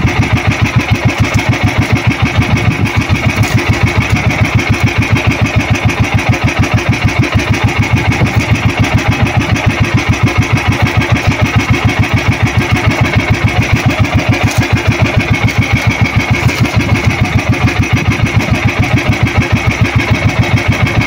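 Outrigger boat's engine running steadily at low speed, a fast, even pulsing beat with a faint steady whine above it.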